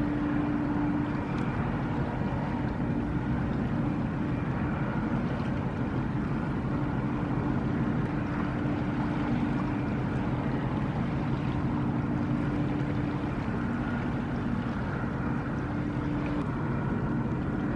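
Steady machinery hum from a large ro-ro car carrier: a low drone carrying a few steady tones that come and go slightly, with no sudden events.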